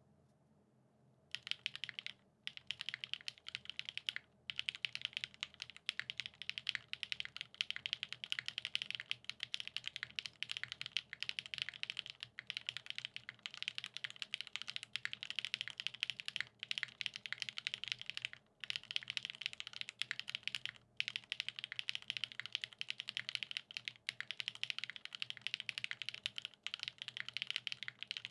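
Fast typing on a TGR 910 v2 ME mechanical keyboard with lubed Gateron X SW Pure Berry linear switches, polycarbonate top-mount plate and GMK keycaps: a dense stream of key clacks, starting about a second in and pausing briefly a few times.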